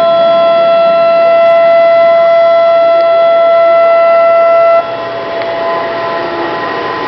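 Tsunami warning sirens sounding a loud, steady, unwavering tone. About five seconds in, the loudest siren cuts off suddenly, and a fainter steady siren tone carries on over a hiss.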